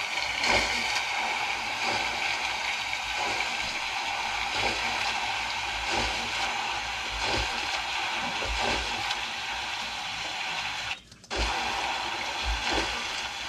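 Layered water-splash sound effects played back as a water-mill wheel soundtrack: a steady rush of water with a splash about every second and a half. The sound cuts out briefly about eleven seconds in.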